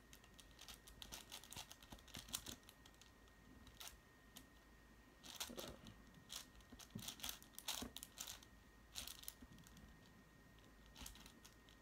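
Plastic 6x6 speed cube being turned and handled, giving irregular, faint clicks and clacks as the layers are twisted while edges are being paired.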